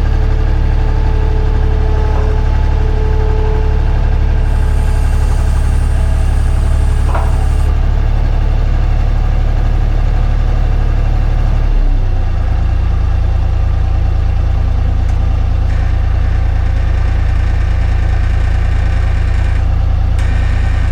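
Skid steer engine running steadily close by; its pitch drops and settles into a new steady note about twelve seconds in.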